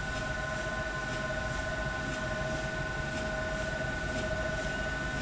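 A3 UV flatbed printer running, its print carriage shuttling back and forth: a steady mechanical hum with a constant high whine and faint regular ticking.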